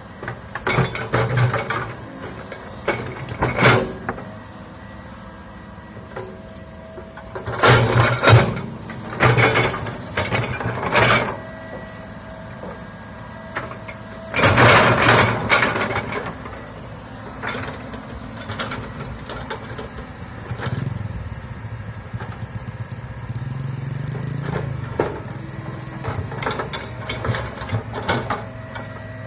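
Komatsu hydraulic excavator running under load as it clears land, its engine humming steadily and rising for a few seconds in the second half. Three loud spells of crashing and cracking come in the first half, with smaller ones near the end.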